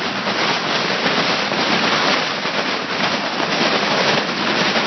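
Tent fabric flapping and crackling continuously in strong gusting wind, with wind buffeting the microphone.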